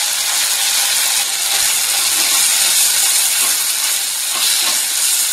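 Diced beef and onion sizzling steadily in a frying pan, stirred with a silicone spatula.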